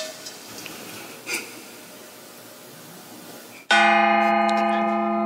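A kkwaenggwari, a small brass Korean gong, is struck once with a mallet about two-thirds of the way in. It rings on with many steady tones and slowly fades. Before the strike there are only a few faint handling clicks.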